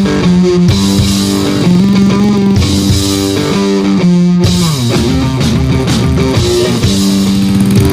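Rock music with electric guitar and a drum kit.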